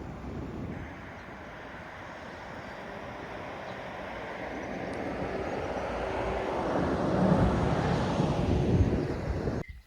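A steady rushing noise that swells over several seconds and then cuts off abruptly near the end.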